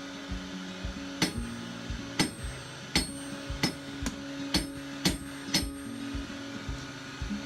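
Hand hammer striking hot steel stock on an anvil while drawing it out to a taper, about nine ringing blows at an uneven pace of one to two a second.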